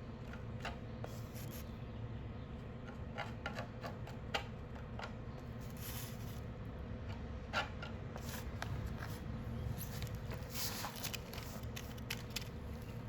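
Hand work on repair material: scattered rustling, small clicks and scrapes over a steady low hum.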